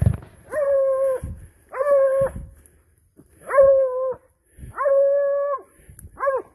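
Hunting dog baying: five drawn-out calls, each held at a steady pitch for under a second, with gaps of half a second to a second between them.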